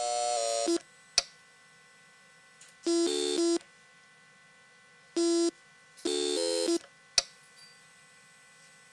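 Sovereign Compact phacoemulsification machine's electronic feedback tones: a pitched tone that cuts off sharply as vacuum falls, about three-quarters of a second in. Then come a sharp click, three short pitched beeps spread over the next few seconds, and a second click.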